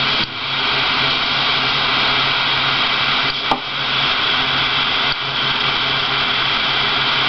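Jet-flame lighter burning with a steady, loud hiss, its flame held on solder to melt it onto a battery connector. One sharp click about three and a half seconds in.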